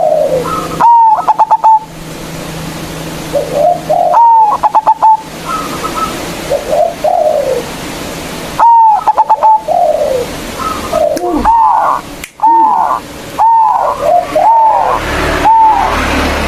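Zebra dove (perkutut) cooing loudly: repeated song phrases of arched notes, each with a quick stuttering run, about every four seconds, then a closer series of single arched coos near the end.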